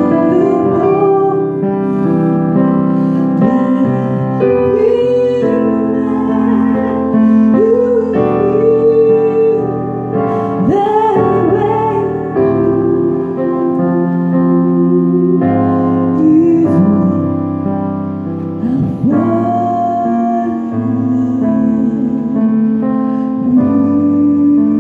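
Digital piano playing sustained chords, with a voice singing a slow melody over it, its pitch sliding between notes.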